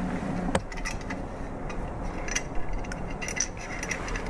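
Light metallic clicks and clinks as an Allen key and the small internal clamps are handled against a Troy Alpha rail handguard while the clamps are fitted inside it. One sharper click comes about half a second in, then scattered lighter ticks.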